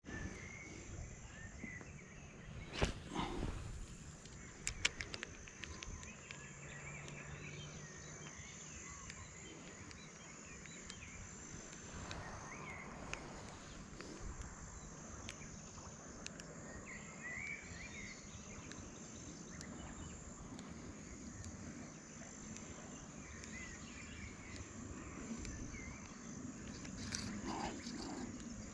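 Quiet riverside outdoor ambience with a steady high insect chirring and faint scattered bird chirps. A few sharp clicks about three and five seconds in come from hands handling the fishing rod and tackle close to the microphone.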